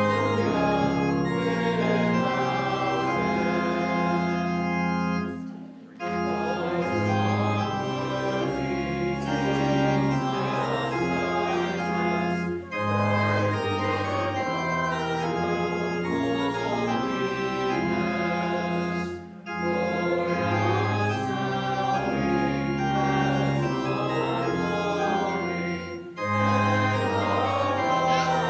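Church organ playing a hymn in held chords, breaking briefly between phrases about every six or seven seconds.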